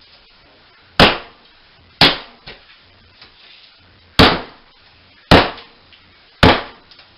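Hammer blows against a bathroom wall during demolition: five hard, separate strikes about a second apart, each with a short ringing decay.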